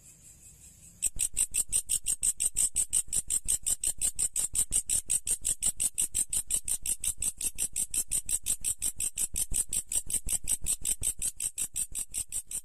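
Insect stridulation: a high-pitched chirping made of a fast, even train of pulses, several a second, starting about a second in and running without a break.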